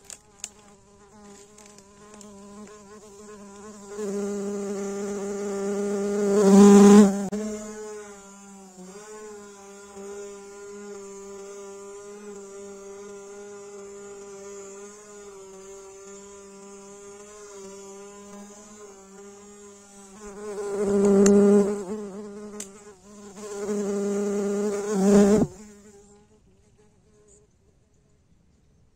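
A flying insect buzzing, its drone wavering slightly in pitch. It swells loud twice as it comes close, about four to seven seconds in and again about twenty-one to twenty-five seconds in, then dies away near the end.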